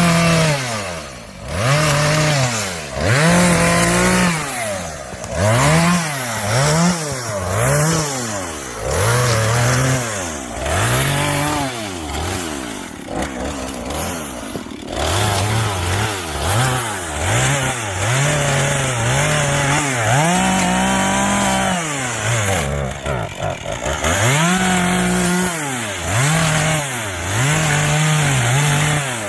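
Chainsaw engine revving up and down over and over, its pitch climbing and falling with each burst, with a few longer held revs in between, as it cuts wood.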